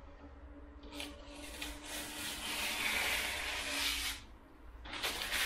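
Clear protective plastic film being peeled off the clear lid of a Bambu Lab AMS: a dry tearing rustle lasting about three seconds, then a shorter rustle of the film near the end.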